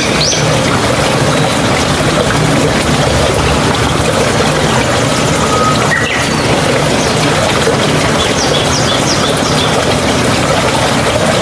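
Mountain stream water running and gurgling steadily, with a few short bird calls over it.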